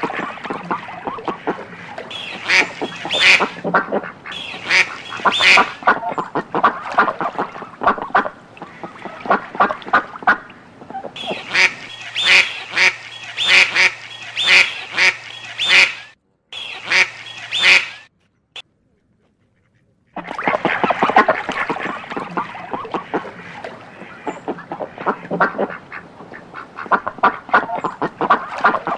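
A group of ducks quacking in fast, overlapping runs of calls. The quacking stops twice partway through, once briefly and once for about two seconds.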